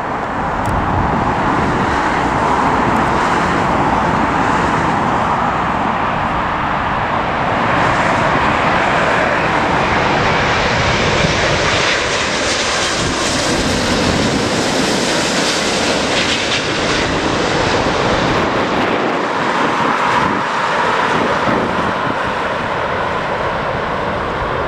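British Airways jet airliner landing, its engines making a loud, steady jet noise that is brightest about halfway through and eases slightly toward the end, with wind rumbling on the microphone.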